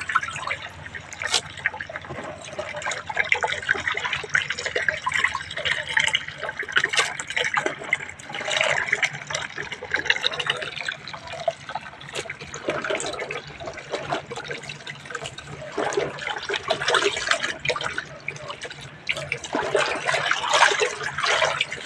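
Water splashing and gushing into a plastic tub, with many small wet clicks and knocks.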